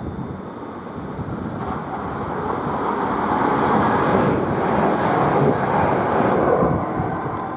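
Class 380 electric multiple unit approaching and passing beneath on the adjacent track. It is a steady rush of train noise that grows louder, peaks about four to six seconds in, then begins to fade.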